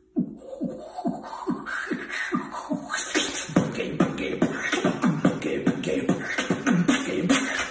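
Human beatboxing: a steady beat of mouth-made kick drums, nearly three a second. About three seconds in, snare and hi-hat sounds join and fill out the rhythm.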